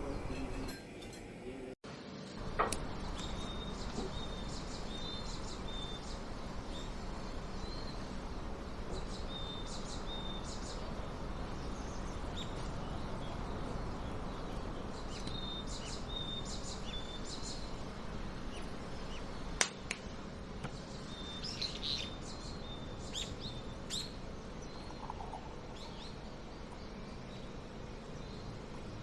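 Small birds chirping in repeated short, high clusters over a steady background hiss of ambient noise.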